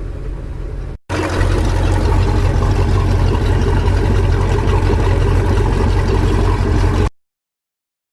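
2003 MerCruiser boat engine running steadily, now that the fuel problem is fixed. About a second in the sound breaks and comes back louder, then cuts off suddenly about seven seconds in.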